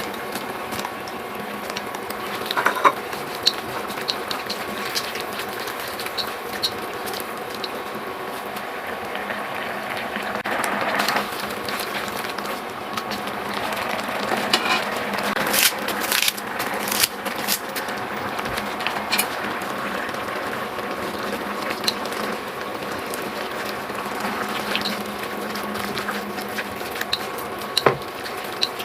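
Food sizzling in a pan, with scattered clinks and scrapes of a cooking utensil against the pan.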